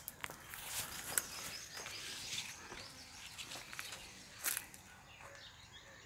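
Forest ambience: a steady faint hiss with scattered clicks and rustles of walking through undergrowth, and a few faint bird chirps near the end.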